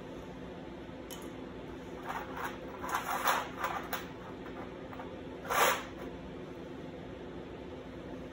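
Steel chain links clinking and sliding against a sheet-steel tabletop as they are nudged into place by hand: a cluster of short rattles, then one louder clink about two-thirds of the way through.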